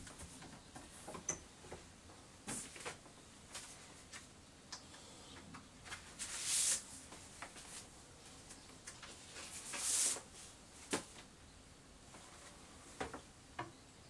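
Handling noises of a suitcase-style record player and a vinyl record: scattered clicks and light knocks, with two longer swishes of the record and its paper sleeve being handled about six and ten seconds in.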